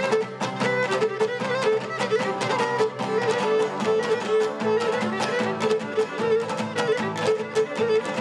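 Cretan lyra playing a quick, repeating folk-dance melody over rhythmic strumming on laouto.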